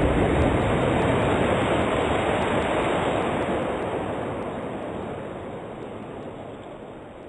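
Rushing, churning water from a person jumping into a swimming pool, a steady splashing noise that fades away slowly.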